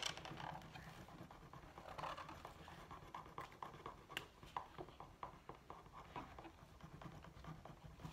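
Felt-tip markers being stroked back and forth on paper while colouring, a faint run of quick, irregular taps and scratches.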